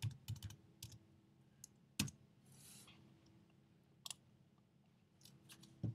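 Scattered clicks from a computer mouse and keyboard: a few isolated clicks, the sharpest about two seconds in, over a faint steady hum.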